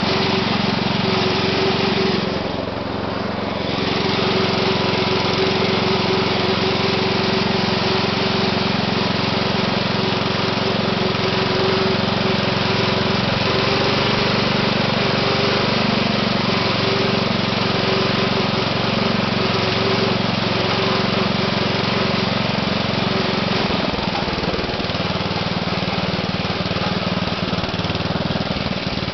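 Small air-cooled, recoil-start engine of a 1972 MTD 960 garden tractor running steadily while the tractor is driven, briefly dropping in level about two seconds in.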